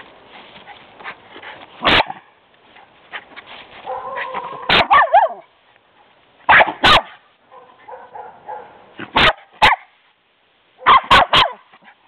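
Schnauzer puppy barking in play: about ten sharp barks, one at a time or in quick pairs and a triple near the end, with drawn-out whining sounds between some of them.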